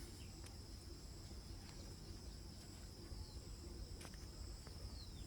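Faint, steady high-pitched trilling of insects, over a low rumble, with a few faint clicks.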